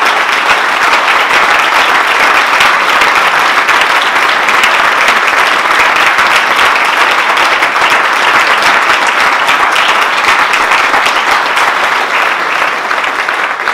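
Audience applause: a seated crowd clapping steadily and loudly, easing slightly near the end.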